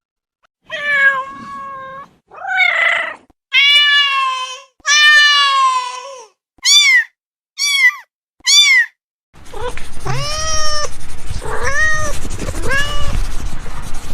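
Domestic cats meowing in a string of separate meows: four longer ones, then three short, higher mews, then from about nine seconds in several more meows in a noisier recording over low background noise.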